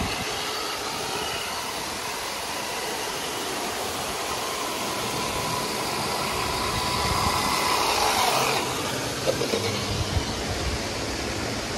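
Radio-controlled Baja Bug car driving through shallow water beside a water wall: a steady rush of falling and splashing water, with the car's electric motor as a thin steady whine. The spray and motor swell about eight seconds in, followed by a few low knocks as the car runs onto dry paving.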